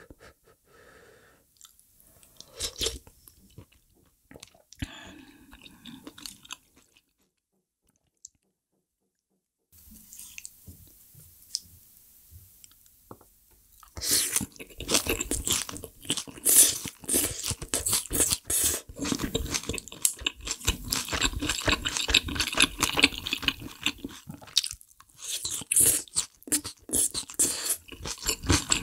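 Close-miked ASMR eating: wet chewing and crunching of food in the mouth. The sounds are sparse and faint for the first several seconds, stop completely for a few seconds, and from about the middle turn into loud, rapid, continuous chewing.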